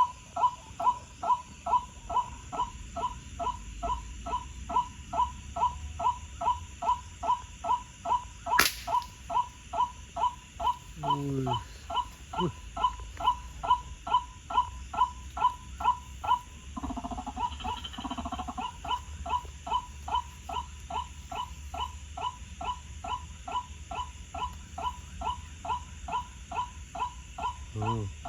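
White-breasted waterhen (ruak-ruak) calls repeated monotonously, about two notes a second, with one short break about two-thirds of the way through. A single sharp crack sounds about eight seconds in.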